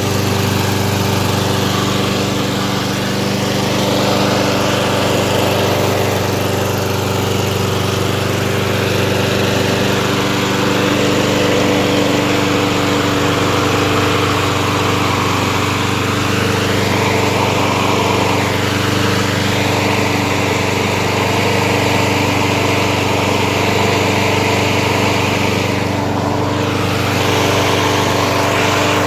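Gas lawn mower's small engine running steadily at a constant speed.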